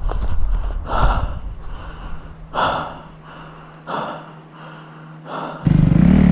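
Heavy panting of an enduro rider worn out after failing a steep climb, a loud breath about every second and a half over a faint low hum. About five and a half seconds in, a dirt bike engine cuts in suddenly and loud, revving.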